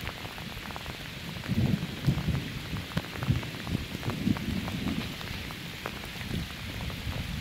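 Steady rain falling, with many irregular close knocks and low thumps of drops striking nearby that grow louder about a second and a half in.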